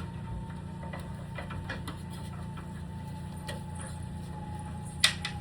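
Scattered light clicks and taps of hands working on a ladder, with two sharp knocks near the end, over a steady low hum.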